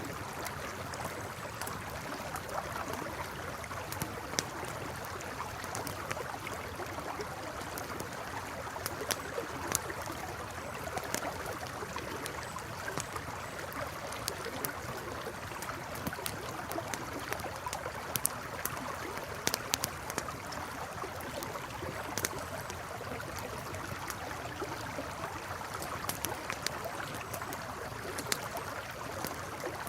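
Campfire crackling, with irregular sharp pops and snaps, over the steady rush of a flowing river.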